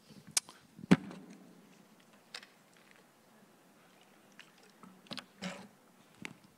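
A handheld microphone is set down on a lectern with a knock about a second in. Then come faint handling sounds and gulps as a man drinks from a plastic water bottle, and small knocks near the end as the bottle is put down and the microphone picked up.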